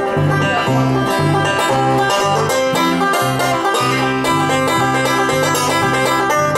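Bluegrass band playing an instrumental break led by a resonator banjo picking fast, running notes. An acoustic guitar and a bass back it, the bass playing steady low notes about two a second.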